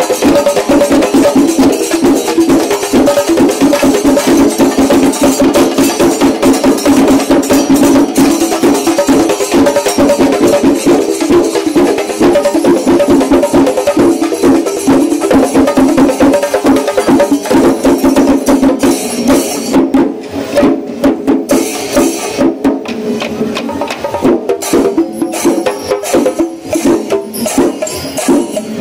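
Kerala temple percussion ensemble, most likely a chenda melam: dense, rapid stick strokes on chenda drums with jingling hand cymbals. About two-thirds of the way in the playing turns sparser and more uneven.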